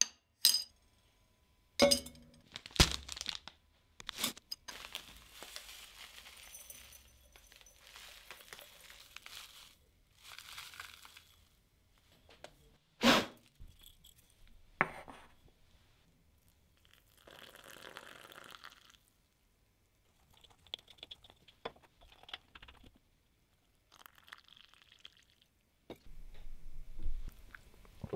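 A ceramic mate cup knocks and clinks on a hard bench, with a metal bombilla clinking against it, as the cup is set down and picked up. Between the knocks come stretches of dry rustling and crunching while the cup is handled and tilted with a palm over its mouth.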